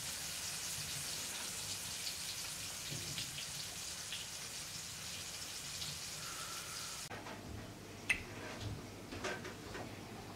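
Fish frying in oil in a pan on a wood-burning stove: a steady sizzling hiss with faint crackles. About seven seconds in it cuts off abruptly to a quieter background with a few light clicks and taps from handling food in metal bowls, one sharper click a second later.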